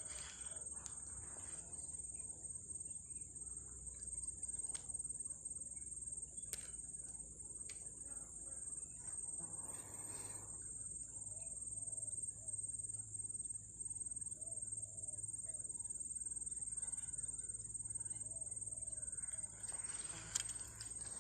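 Steady high-pitched insect drone, one unbroken whine, with a few faint scattered clicks over it.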